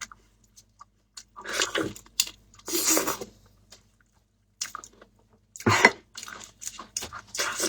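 Close-up chewing and biting of food, with some crunching, in several short bursts with brief pauses between them.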